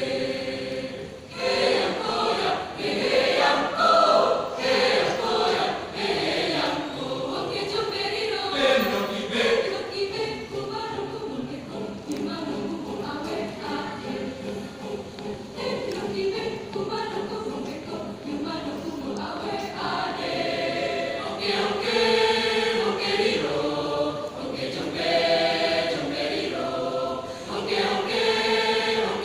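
Student choir singing together, many voices in continuous sung phrases.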